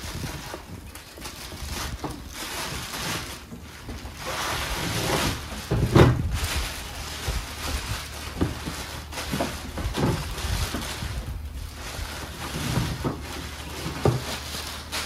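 Plastic wrapping rustling and crinkling as it is pulled off a small welder and handled, with a few soft knocks, the loudest about six seconds in.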